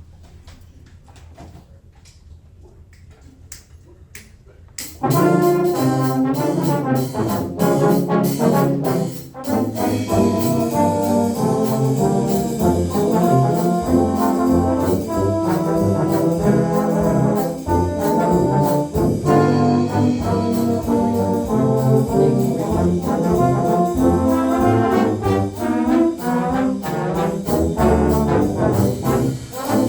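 A low brass ensemble playing a jazz march, starting about five seconds in after a quiet stretch with a few faint clicks.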